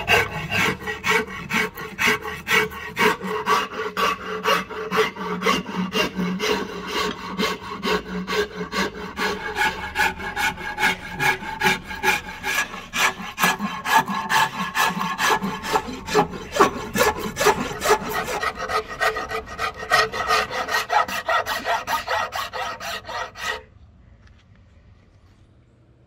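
Rapid back-and-forth strokes of a hand file scraping, about two a second. They stop suddenly near the end.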